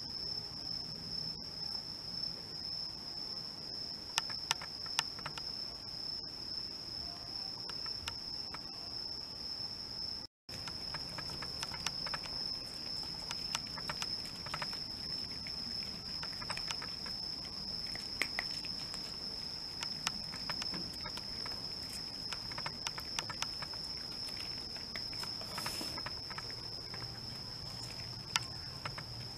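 Crickets trilling steadily at a high pitch in the background, overlaid by scattered small clicks and crunches of cats eating dry kibble off newspaper.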